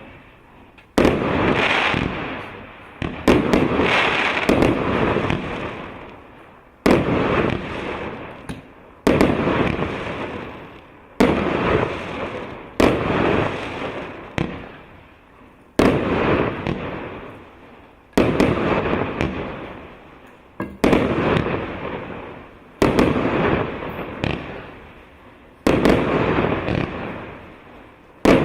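A 168-shot, 1.25-inch consumer fireworks cake firing: a sharp bang every one to two seconds, each followed by a fading tail of sound.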